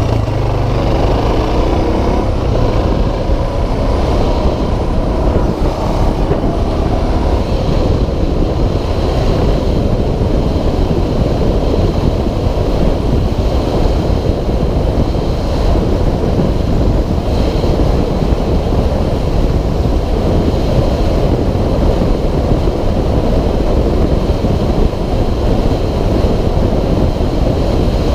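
Wind rushing over the camera's microphone at road speed, mixed with the Suzuki DR650SE's single-cylinder four-stroke engine running under way. The engine's pitch rises in the first second or two as the bike accelerates, then the wind rush stays steady.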